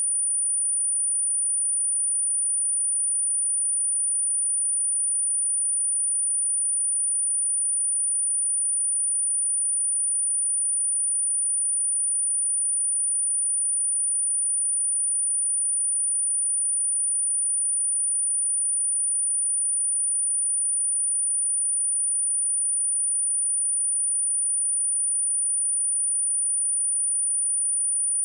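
A single steady 9437 Hz sine-wave test tone, one high-pitched pure tone held at constant loudness, used to test speakers and to shake water and dust out of them.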